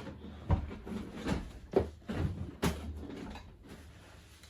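Hard plastic knocks and clunks from handling a laser printer's trays and panels, about five of them in the first three seconds, then quieter handling noise.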